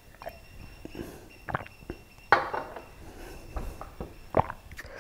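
Drinking water from a stemmed glass and handling it at the table: a few scattered soft knocks and glass clinks. The loudest comes a little over two seconds in, and another near the end.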